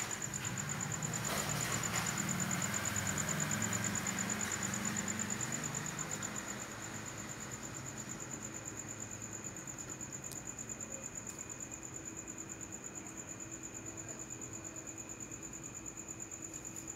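Night insects trilling steadily in a high, fast-pulsing tone. A low rumble underneath fades away about six seconds in.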